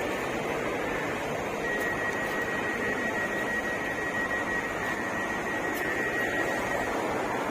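Hybrid passenger train pulling away, a steady running noise with a hum underneath. A steady high whine joins about two seconds in and stops near the end.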